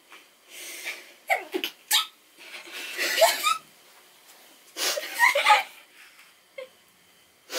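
A person sneezing, with breathy laughter between the bursts.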